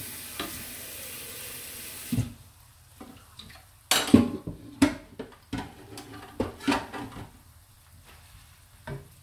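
Kitchen cooking sounds: a steady hiss for about two seconds that cuts off abruptly, then a run of knocks and clatters of utensils against a pan, the loudest about four seconds in, and one last knock near the end.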